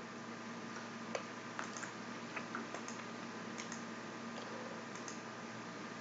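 Faint, irregularly spaced clicks, about half a dozen, over a steady background hiss with a low hum.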